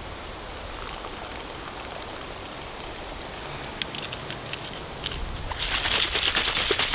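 Water being poured from one container into another: a steady trickle that turns louder and splashier, with gurgling, about five and a half seconds in.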